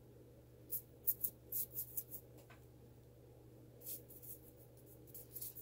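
Paintbrush scrubbing white weathering chalk into an insulation-foam model road, heard as faint, short scratchy strokes. A quick run comes in the first two seconds, a few more near four seconds and at the end, over a low steady room hum.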